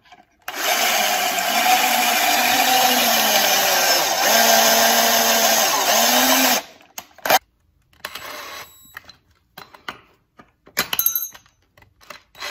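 Cordless drill boring a pocket hole through a Kreg jig's drill guide into a wood board, running for about six seconds with its motor pitch dipping and recovering under load, then stopping. A few short knocks follow.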